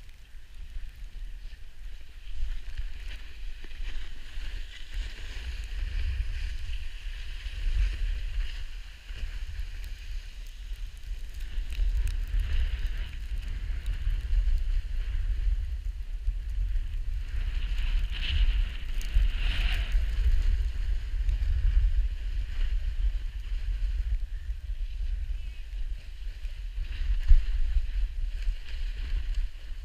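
Wind buffeting a GoPro action camera's microphone as a snowboarder rides downhill, with the steady hiss and scrape of the snowboard sliding over packed snow.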